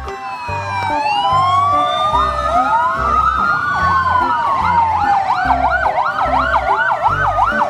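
Several fire-engine sirens sounding together: slow rising and falling wails overlap, and about five seconds in one switches to a fast yelp, about three cycles a second. A low regular beat runs underneath.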